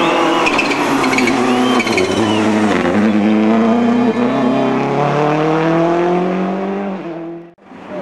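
A World Rally Car's engine under hard acceleration, its pitch climbing steadily through one long pull, with a high wavering tyre squeal in the first couple of seconds. The sound cuts off abruptly near the end.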